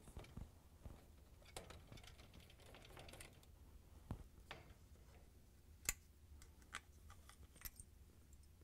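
Near silence broken by a few faint, sharp clicks and taps, the loudest about six seconds in: the screw, its bearing, the quarter-inch nut driver and the plastic middle spray arm of a dishwasher being handled as the arm is unscrewed and taken off.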